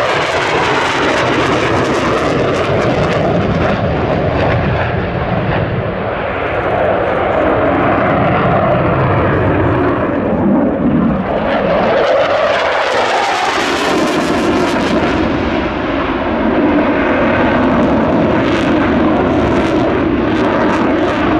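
Dassault Rafale C fighter jet in display flight, its twin M88 turbofans making a continuous loud roar that rises and falls as it manoeuvres, swelling to a louder, hissier peak about twelve to fifteen seconds in.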